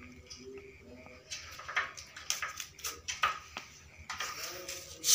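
Irregular scratches and rustles as a kitten claws at a dangling paper toy and the wooden table leg and scrabbles on the floor while playing on its back. The loudest scrape comes near the end.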